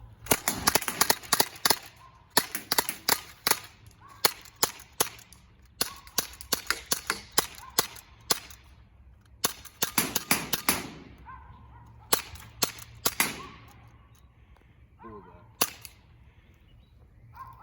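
Two Umarex Glock 17 CO2 blowback BB pistols firing in rapid strings of sharp shots, broken by short pauses, with one last single shot near the end.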